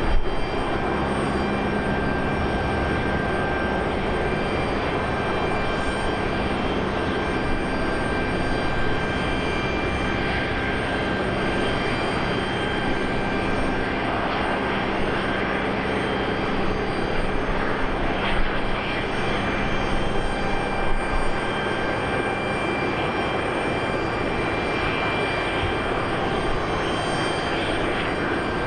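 Airbus A330-300's Rolls-Royce Trent 700 jet engines at taxi idle: a steady jet rumble with several high whining tones running over it.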